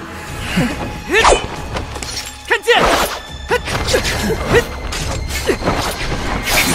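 Audio-drama sword fight: several sharp sword clashes, about a second apart, over dramatic background music, with shouted dialogue between them.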